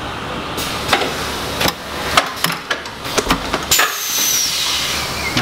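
Automatic screen printing press running a print stroke, its print head pushing the squeegee and flood bar across the screen. Repeated sharp clacks and knocks sound over a steady hiss of air, with a short falling whistle about four seconds in.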